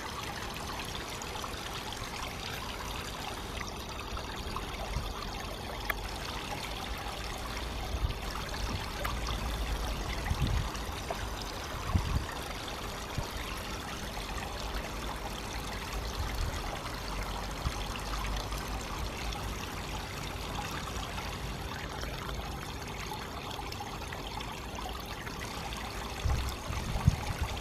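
Small waterfall and fountain of a miniature garden rock pool running, water splashing and trickling steadily. A few brief low bumps come through now and then, the loudest near the end.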